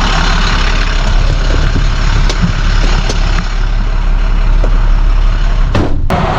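Vehicle driving: steady engine and road rumble with scattered small clicks and rattles, broken briefly near the end.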